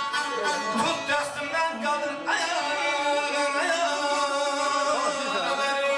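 Azerbaijani ashug music: a man singing over plucked saz strings. About two seconds in he moves into one long, wavering held note.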